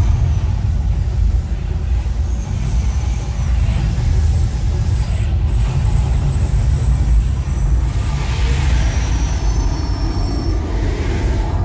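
The Mirage volcano show's eruption: its gas-fed fire jets and fireballs make a loud, deep, steady rumble with a noisy roar over it.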